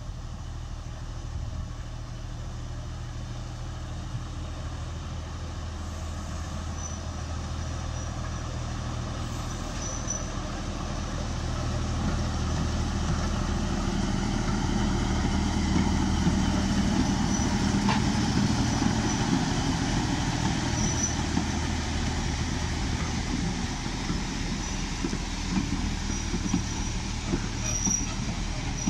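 Class 03 diesel shunter D2128 running under load as it hauls a train of coaches past, its engine growing louder as it approaches, peaking as it passes and then easing. Near the end the coaches' wheels click over the rail joints as they roll by.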